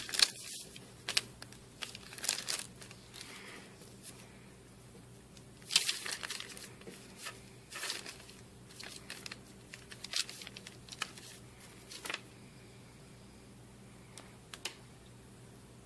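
Wax paper work sheet crinkling and rustling in short irregular bursts as hands and a needle tool cut soft polymer clay on it. It goes quiet for the last few seconds, apart from a couple of faint ticks.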